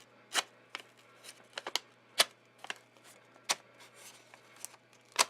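Irregular sharp clicks and taps of small hard objects being handled, about ten in all, the loudest a little after two seconds and near the end.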